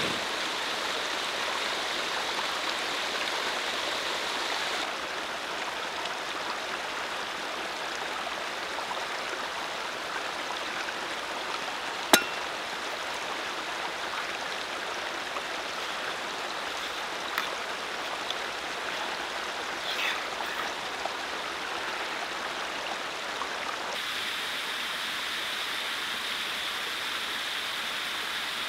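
Steady rush of running water from a small stream and waterfalls spilling over rock. The water sound drops a little about five seconds in and brightens again near the end. A single sharp click about twelve seconds in.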